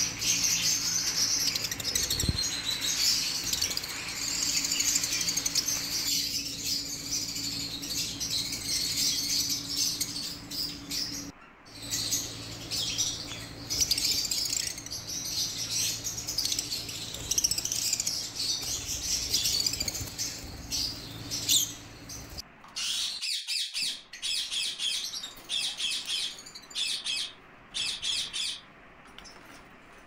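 A group of caged small parrots, lovebirds among them, chattering with constant rapid high-pitched chirps and squeaks. Under them runs a low steady hum that stops about two-thirds of the way through.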